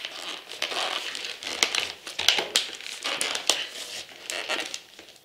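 Packaging crinkling and rustling, with irregular sharp clicks and taps, as a plastic-bagged comic book is worked out of a subscription box by hand.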